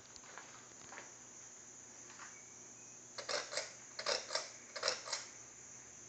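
A cluster of sharp clicks and rattles lasting about two seconds, starting about three seconds in, over a faint steady hum: the pull chain and speed switch of a Hunter Passport II ceiling fan being worked to change it from low to medium speed while it runs.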